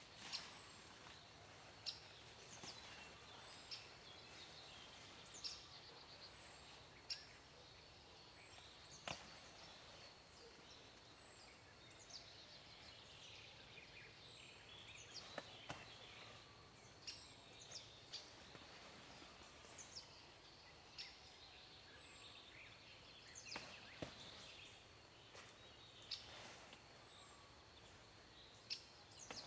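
Quiet woodland ambience. A bird repeats a short, high, falling call every two seconds or so, while sharp snaps and faint rustles come from burdock leaves being pulled and gathered.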